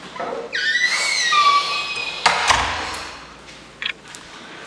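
A door creaking open with a high, wavering squeal, then a thump about two seconds in as the door swings to.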